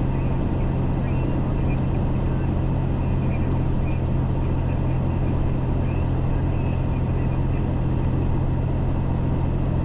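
MAN 4x4 truck's diesel engine running at a steady low drone while under way, with road noise.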